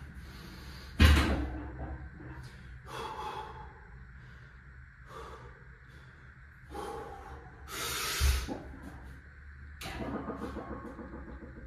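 A lifter's heavy breathing as he recovers from a heavy overhead log-press set: about five loud, rasping breaths a couple of seconds apart, the strongest about a second in and about eight seconds in.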